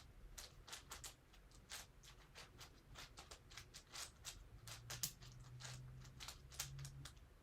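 Faint, irregular plastic clicks and clacks of a QiYi QiFan S2 6x6 speedcube's layers being turned by hand, a few a second.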